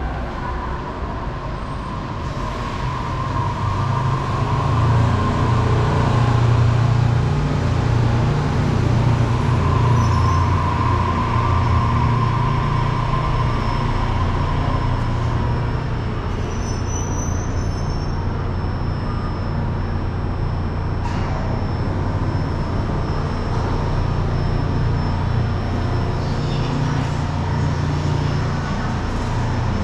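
Daegu Metro Line 3 straddle-beam monorail train pulling into an elevated station and stopping at the platform: a steady low hum of its motors and running gear, loudest a few seconds in. A whine comes in twice, then settles to a steadier hum.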